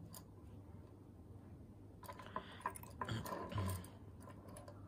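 Faint handling noise: a few soft clicks and small rattles, bunched between about two and four seconds in, as a carved ivory pendant on its silver chain is turned in the hand.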